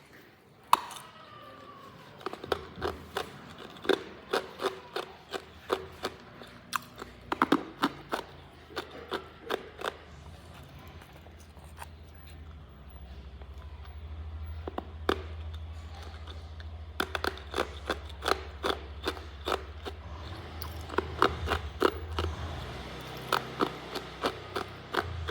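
Hard ice being bitten and crunched close to the microphone: quick runs of sharp cracks, about two a second, in two long spells with fewer cracks between them, over a steady low hum.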